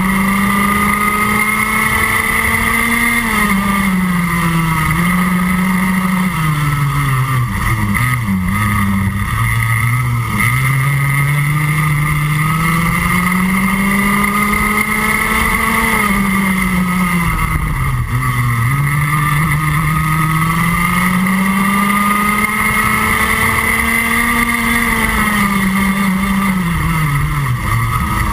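Rotax Max Junior 125cc two-stroke kart engine heard from on board, revs climbing steadily along the straights and dropping sharply several times as the kart brakes for corners.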